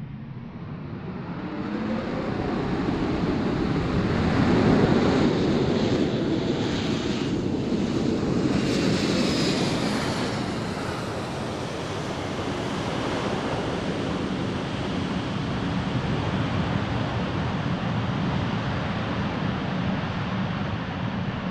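Library recording of an aircraft's reverse thrust: a rushing roar that swells in over the first few seconds, peaks about five seconds in, carries a brief high whine near the middle, then settles into a steady rumble.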